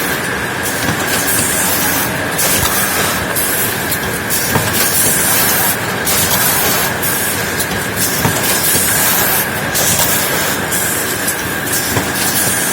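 Automatic leno mesh bag cutting and sewing machine running: a steady mechanical clatter with a constant high whine, broken by repeated short bursts of hiss.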